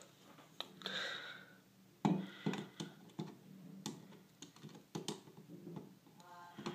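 Light clicks and scrapes of a flathead screwdriver tip seating in the slotted screw of a wall switch-and-outlet faceplate, with a sharper click about two seconds in.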